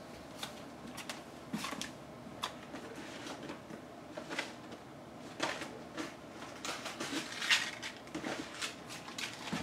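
Scattered light knocks, clicks and rustles of objects being handled and moved about, a few seconds apart, the sounds of someone fetching a small packet of craft brads.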